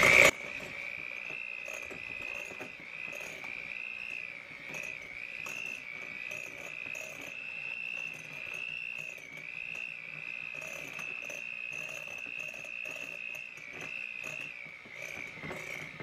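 Electric hand mixer running with a steady high whine as its beaters shred cooked chicken in a glass bowl. The pitch dips slightly now and then.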